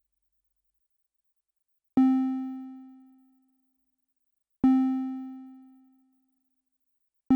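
Elektron Monomachine synthesizer playing two single notes of the same pitch, about two and a half seconds apart, each starting sharply and fading out over about a second. Right at the end a fast arpeggio begins.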